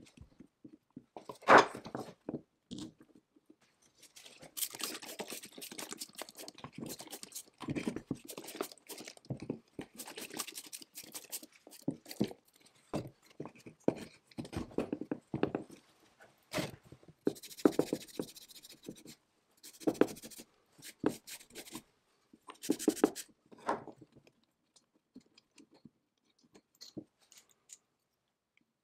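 Small metal parts of a 1954 McCulloch 99 chainsaw carburetor clinking, tapping and scraping against the housing and a wooden bench as it is taken apart by hand. A sharp clink comes about a second and a half in, then irregular handling noise, dying down to a few faint ticks near the end.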